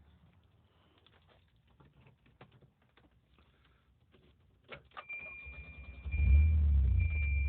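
Keys jangling and clicking, then a steady high-pitched warning tone comes on about five seconds in. The Volvo's engine cranks briefly and catches about six seconds in, then runs loudly and steadily.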